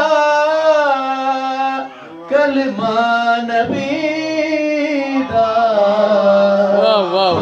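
A man singing a devotional qaseeda in long held notes that bend and waver, with a short break for breath about two seconds in.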